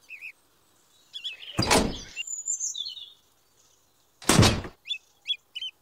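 Small birds chirping in short repeated wavering calls, with two short loud bursts of rushing noise, each about half a second, cutting in about one and a half seconds in and again near four seconds in.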